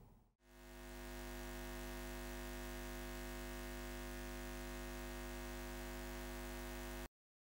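A steady electric-sounding hum with a layer of hiss fades in over about a second, holds unchanged, then cuts off abruptly near the end.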